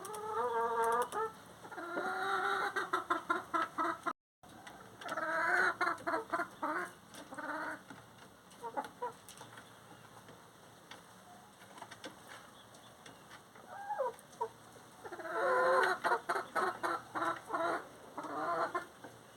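Chickens clucking and cackling in several bursts of rapid, pitched calls, with a longer drawn-out call about two seconds in and a loud run of cackling near the end. The sound cuts out briefly about four seconds in.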